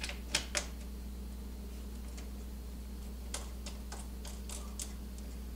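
Irregular light clicks and taps of small metal and plastic parts being handled as bolts and covers are fitted on a snowmobile engine. There are two sharper clicks near the start and a run of lighter ones about three to five seconds in, over a steady low hum.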